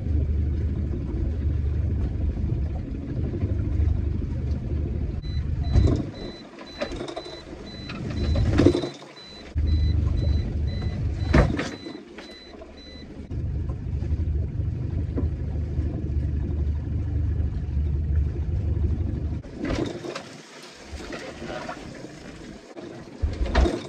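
Small fishing boat under way, its engine and wind making a low rumble on the microphone that cuts in and out. A few sharp knocks sound through it, and a faint high beeping repeats rapidly for several seconds midway.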